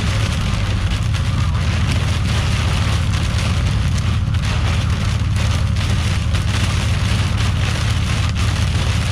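Heavy rain with light hail pelting down, a dense hiss full of sharp ticks from stones and drops striking, over a steady low rumble.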